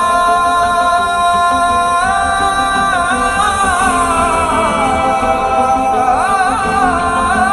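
Hindi film song playing from a JBL portable Bluetooth speaker: a voice holding long, wavering notes over the backing music. The speaker is playing properly again, run from an improvised external battery after its charging pin broke.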